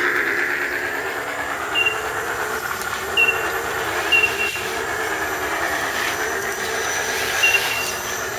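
Electric motors and gear drivetrains of several scale RC rock crawlers whining and grinding as they crawl over tree roots, a steady whine that wavers in pitch.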